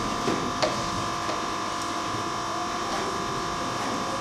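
A steady electrical buzz with a fixed high hum, and a single sharp click just over half a second in.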